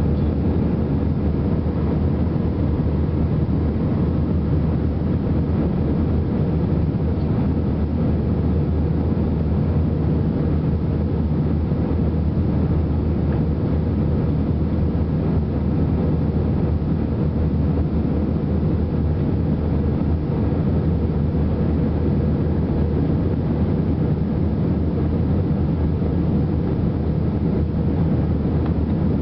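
Airbus A320-200 cabin noise in flight shortly after take-off: a steady, low drone of the jet engines and rushing air heard inside the cabin over the wing.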